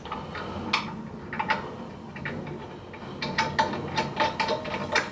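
Light metallic clicking and ticking from steel lug bolts being threaded by hand into a spare wheel's hub, a quicker run of ticks in the last couple of seconds.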